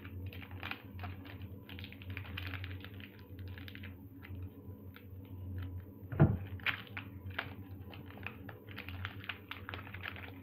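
Foil wrapper of a Pokémon trading card booster pack crinkling and tearing as it is opened by hand, in quick irregular crackles, with one loud thump a little past halfway.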